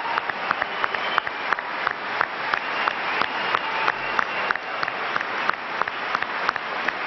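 Large audience applauding, dense steady clapping, with a few nearer, sharper claps standing out.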